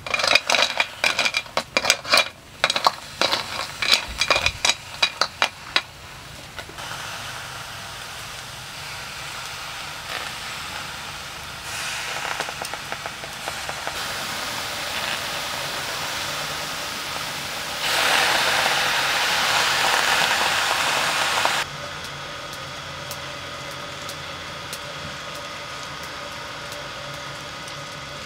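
Snail shells clinking in a metal wok as coarse salt is poured over them: a fast, irregular run of sharp clicks for about six seconds. Then a steady hiss, louder for a few seconds about two-thirds of the way through.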